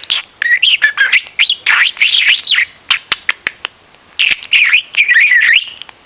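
A budgerigar chattering close up: bursts of rapid warbles, chirps and clicks, with mimicked speech-like phrases, and a short lull of scattered clicks about three seconds in.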